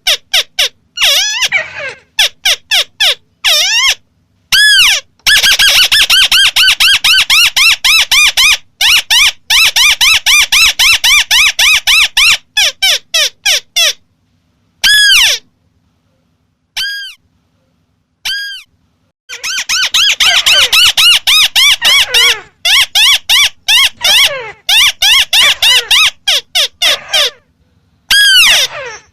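White-browed crake (Amaurornis cinerea) calling: two long chattering runs of quick repeated notes, each note arching and falling in pitch, with only a few single notes in a lull between them.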